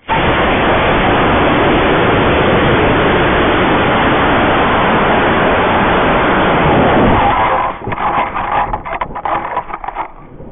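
Estes model rocket motor lighting with a sudden loud rush of noise that holds steady for about seven and a half seconds as the rocket climbs and coasts, heard as rushing air on a microphone riding on the rocket. Then it breaks into choppy, uneven wind buffeting as the rocket comes back down.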